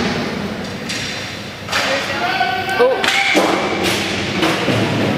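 Inline hockey play: several sharp knocks of sticks and the puck against the floor and boards, with players shouting from about two seconds in.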